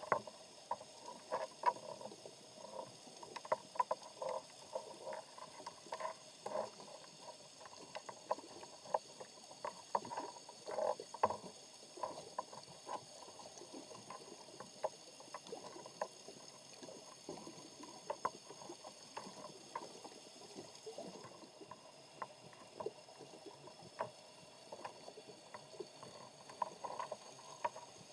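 Underwater ambient sound heard through a camera's waterproof housing: irregular soft clicks and knocks, several a second, over a faint steady high whine.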